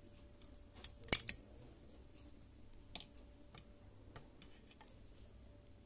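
Knitting needles clicking against each other as stitches are worked: a few sharp, separate clicks, the loudest cluster about a second in, over a faint steady hum.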